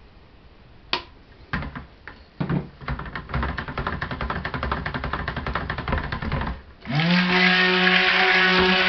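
Immersion (stick) blender in a bucket of soap batter: a few knocks and a rapid churning rattle as it is worked through the batter, then about seven seconds in its motor switches on and runs with a steady hum, blending the batter.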